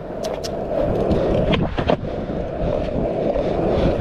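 Skateboard wheels rolling over pavement with a steady rumble, broken by sharp clacks of the board: a pair about a quarter second in, another pair about a second and a half in, and more near the end.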